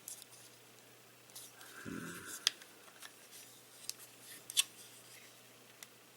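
Faint, scattered plastic clicks and ticks from a Transformers action figure being handled, as two of its parts catch on each other and will not clip together. The sharpest clicks come about two and a half and four and a half seconds in.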